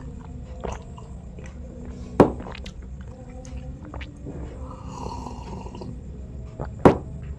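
Sipping coffee from a glass, with soft slurping and swallowing over a low steady hum. Two sharp clicks stand out, one about two seconds in and one near the end.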